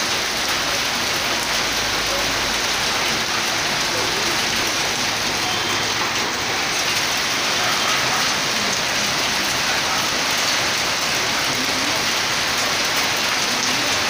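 Heavy rain mixed with hailstones pouring down in a hailstorm, a steady dense hiss that does not let up.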